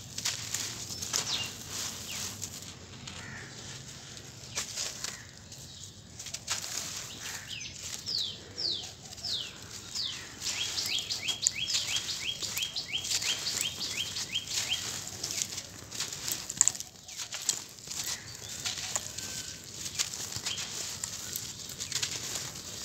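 Dry sand-cement blocks crushed and crumbled in bare hands: dense gritty crackling and crunching, with loose sand and dust pattering down from the fingers.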